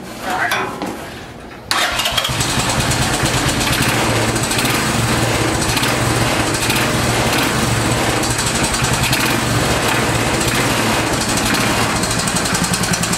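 Small engine of a 1969 Roof Palomino lawn-mower mini jeep, coming in abruptly just under two seconds in and then running steadily.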